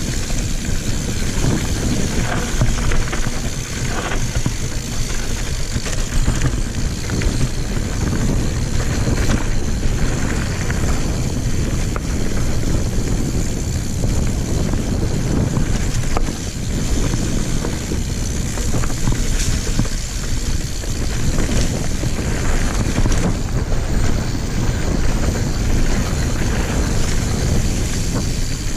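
Mountain bike riding a dirt singletrack: wind buffets the microphone, with steady tyre rumble and scattered knocks and rattles from the bike over rough ground.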